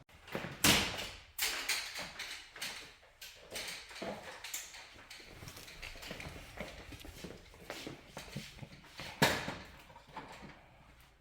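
Irregular knocks and clatter of things being handled or set down, with a sharp loud bang about a second in and another near the end.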